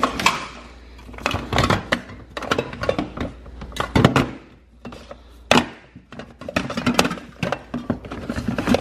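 Metal aerosol spray-paint cans clinking and knocking against each other and the plastic storage bin as a hand rummages through them. The clatters come irregularly, a few loud knocks among lighter clinks.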